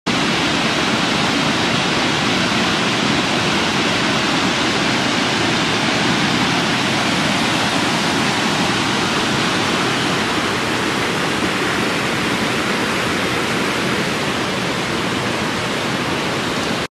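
Mountain waterfall cascading down a rocky channel: a steady, loud rush of falling water.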